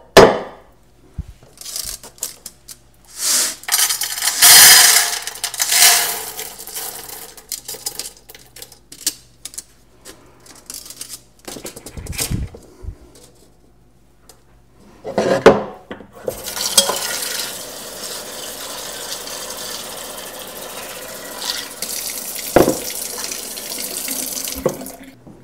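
Dried navy beans poured from a metal mesh strainer into a pot, a dense clatter lasting a couple of seconds, followed by a few knocks of the cookware. In the second half a kitchen tap runs steadily into the pot, filling it with water to cover the beans.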